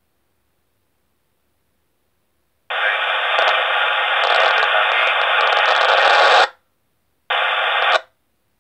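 Radio scanner on a narrowband FM fire-service channel: squelched silence, then about two and a half seconds in a burst of radio static hiss lasting around four seconds that cuts off sharply, and a shorter burst of the same static near the end. These are transmissions opening the squelch with no voice on them.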